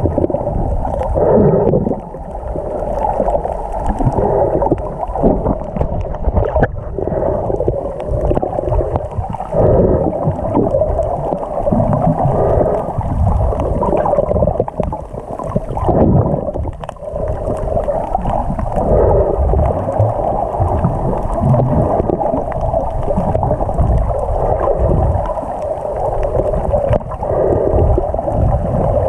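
Muffled underwater noise picked up by a GoPro in its waterproof housing: a low churning rumble and gurgle of water moving around the camera as it swims over the reef, swelling and fading every few seconds.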